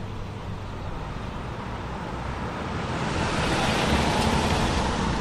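A car passing on the street, its tyre and road noise swelling to a peak about four seconds in, then easing slightly.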